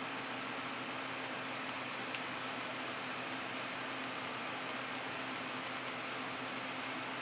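Small tactile push button on a breadboard clicked again and again, a light tick a few times a second, stepping the controller's set temperature up. Under the ticks runs a steady hiss with a faint hum.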